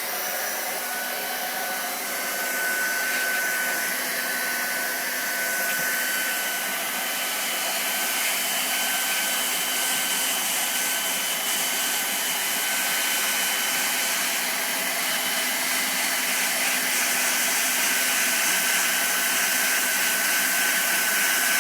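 Leister hot-air hand welder with a fishtail nozzle running steadily: a loud blower hiss with a steady high whine, as it heats PVC roof membrane for welding.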